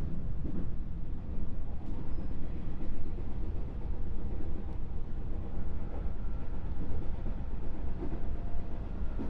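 Running sound inside a JR West 221 series electric train's motor car: a steady low rumble of the wheels and bogies on the rails, with a faint whine coming in about six seconds in.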